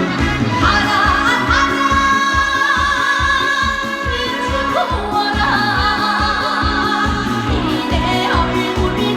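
Female trot singer singing live over a backing track with a steady beat, holding one long note with vibrato from about half a second in until about five seconds in, then going on to shorter phrases.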